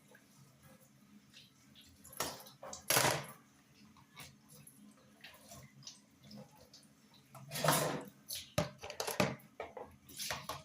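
Dishes being washed by hand: water splashing and sloshing with plates knocking together, in short bursts a few seconds apart.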